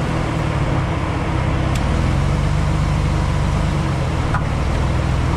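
2005 Jeep Liberty KJ running steadily in first gear with its automatic transmission, crawling along a dirt trail: a low, even engine drone with a rush of road noise over it.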